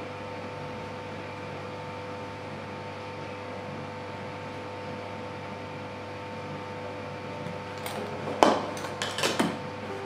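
Steady humming with a couple of fixed tones throughout. About eight seconds in, a few sharp clinks and knocks as the glass coffee jar and spoon are handled and set down on the wooden table, the loudest knock first.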